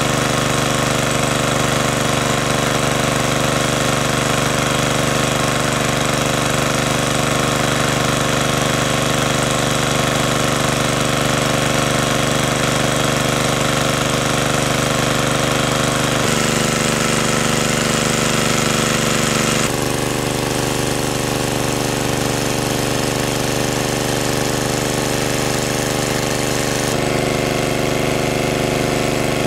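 Small engine-driven water pump running steadily, drawing water out of a pond through a hose. Its tone shifts abruptly three times in the second half.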